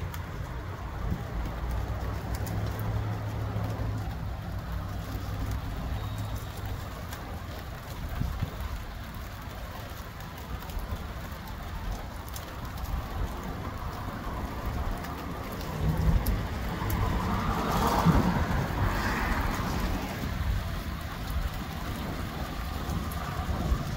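Gusty wind buffeting the microphone with a steady low rumble, along with rain falling. A louder swell of sound rises and fades about two-thirds of the way through.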